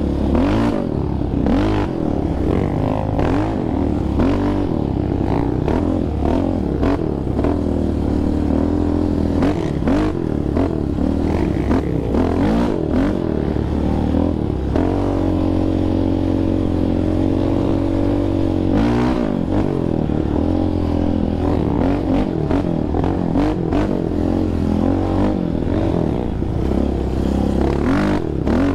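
Yamaha Raptor 700R's single-cylinder four-stroke engine revving up and down as the quad is ridden, with knocks and clatter from the machine over bumps. The revs hold steadier for a few seconds in the middle.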